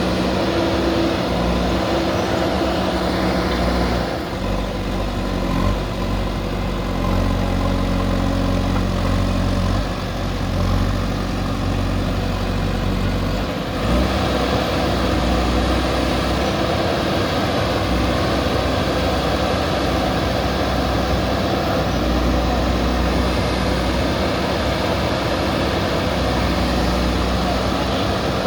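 JCB backhoe loader's diesel engine running steadily, its engine note shifting several times as the machine works.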